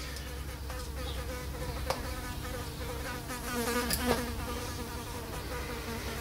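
Small metal clicks and scraping of a pick tool working inside a rust-fouled drum-brake wheel cylinder, sharpest about two seconds and about four seconds in. Under them runs a steady buzzing hum whose pitch wavers.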